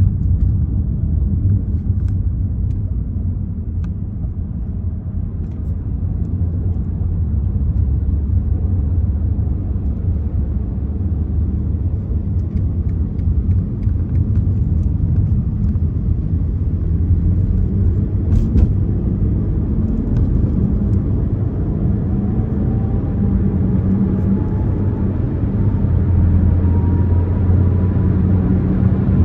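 2024 BMW M4 Competition being driven: a steady low rumble of its twin-turbo inline-six and road noise, with a faint tone rising slowly over the last few seconds.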